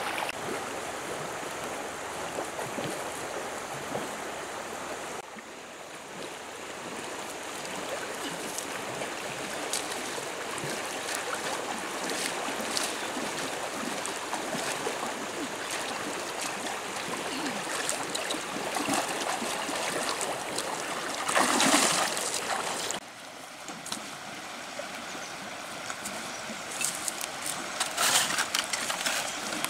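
Shallow river running steadily, with splashing of feet wading through the water and a louder splash lasting about a second around two-thirds of the way in.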